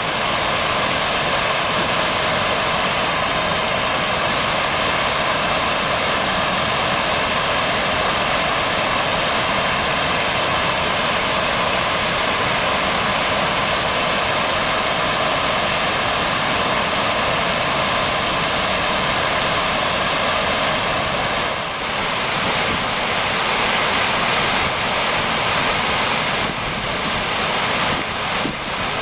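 Loud, steady rush of water pouring out of the lower end of a turning 100 kW Landustrie Archimedean screw hydro turbine and churning white over rocks into the river, like a weir.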